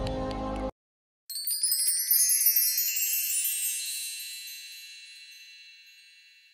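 Concert music cuts off abruptly, and after about half a second of silence a chime sound effect sets in: a glittering cascade of high bell-like notes that rings on and slowly fades away.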